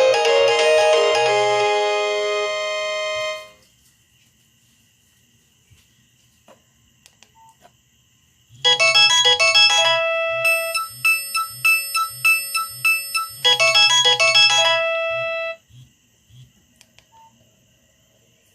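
Ringtones played on a Nokia 6085 mobile phone. One tune ends about three and a half seconds in. After a pause with a few faint clicks, a second short ringtone plays for about seven seconds and cuts off, followed by another pause.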